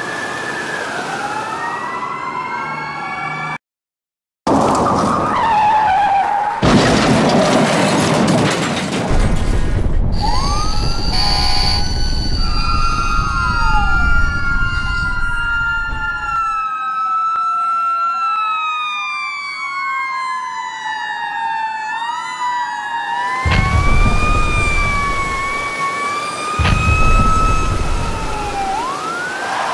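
Several emergency-vehicle sirens wailing up and down at once, overlapping throughout, with a short break of silence about four seconds in. Loud rushing of spraying water comes and goes over them, from a fire hose turned on flames.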